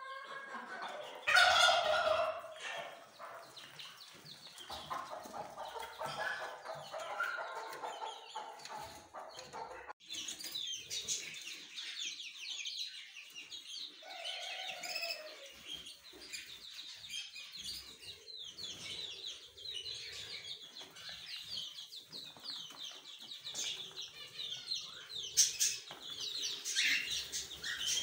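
Chickens clucking in a coop, with one loud call about a second in. After about ten seconds, a brood of chicks takes over, peeping shrilly and continuously.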